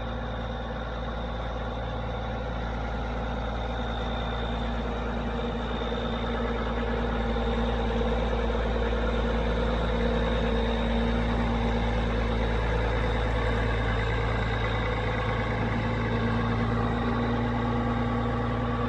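Case IH 9390 articulated four-wheel-drive tractor's Cummins six-cylinder diesel running steadily as the tractor drives slowly up, growing louder over the first several seconds as it nears.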